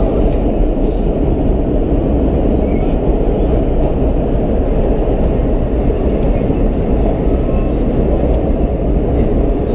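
Vintage R1-9 subway train running, heard from inside the car as a steady, loud rumble of wheels on rail and motors.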